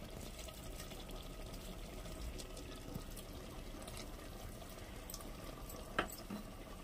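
Mutton masala sizzling faintly and steadily as it fries in an aluminium pressure cooker, with a single sharp tap about six seconds in.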